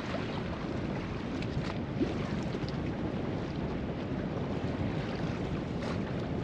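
Steady wind rushing over the microphone, with small waves lapping against the hull of a sailboat at anchor.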